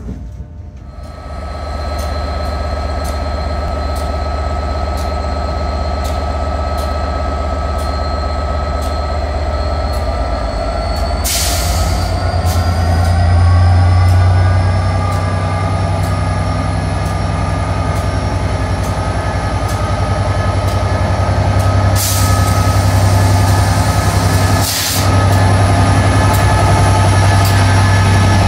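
Class 67 diesel locomotive hauling a rake of coaches slowly along a platform. A steady low engine drone is loudest as the locomotive comes past about halfway through, with evenly spaced clicks and three short bursts of hiss.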